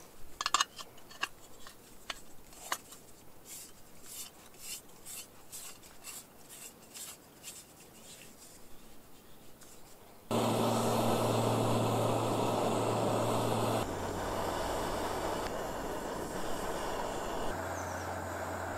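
Dry juniper bark being peeled and broken off by hand, a run of faint, irregular crackles and snaps. About ten seconds in this gives way suddenly to a steady rushing noise with a low hum.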